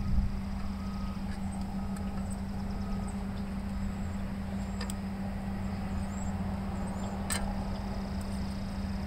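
A steady low hum, with two faint sharp clicks from the choke rod and carburettor linkage of a Honda GC160 engine being worked by hand.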